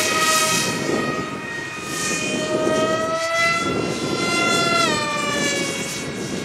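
Twin electric motors and propellers of a foamboard RC plane whining in flight, the pitch climbing slightly and then dropping sharply about five seconds in, over a steady rushing noise.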